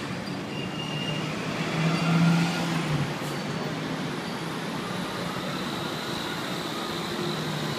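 Hong Kong double-decker tram running along its tracks, heard from on board: a steady running rumble with a low hum that swells louder for about a second, about two seconds in.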